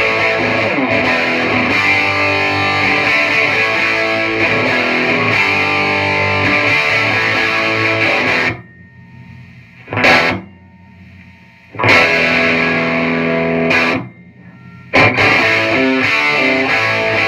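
Distorted electric guitar through a cranked, handmade tube amp (12AX7 and 12AU7 preamp tubes, 6P3S-E output tubes) and a 1x12 cabinet with a Celestion Gold speaker, recorded by a phone microphone that the amp overloads. Continuous playing stops about halfway through; then come a short stab, a chord held about two seconds, and renewed playing near the end. In the pauses only faint amp noise remains, low enough to count as not very noisy: the new preamp tube sockets working properly.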